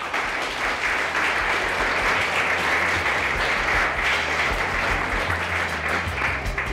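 Lecture audience applauding, dense steady clapping that thins out near the end.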